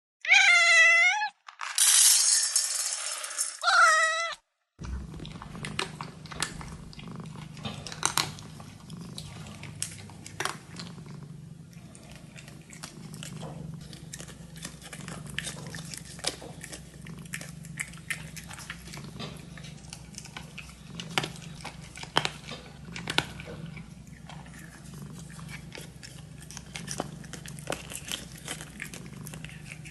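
Dragon Li kitten purring steadily as it eats, with many small crunches as it chews its food. The clip opens with a few loud, high calls before the purring begins.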